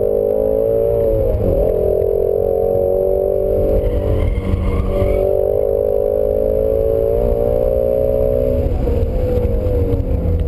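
A 2017 Ford Shelby GT350 Mustang's 5.2-litre flat-plane-crank V8 pulling hard under acceleration, heard from inside the cabin. The note breaks and recovers briefly about one and a half seconds in, like an upshift, and falls away near the end as the driver lifts off.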